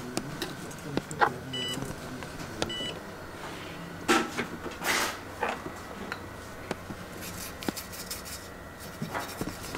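Two short electronic beeps about a second apart, among scattered clicks, knocks and rustles of handling over a steady faint room hum.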